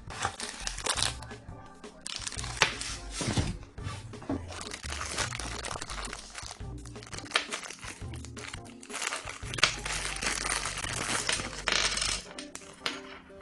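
Background music with a bass line, over passages of scratchy, crumpling noise and occasional sharp clicks or knocks.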